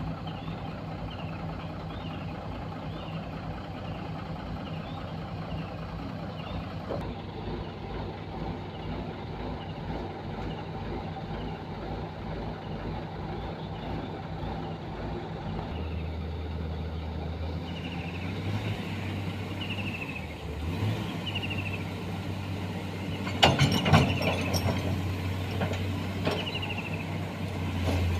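Komatsu hydraulic excavator's diesel engine running steadily while it works, with a faint high chirp repeating about once a second. About halfway through the engine settles into a heavier, deeper drone, and a few loud metallic clanks come near the end.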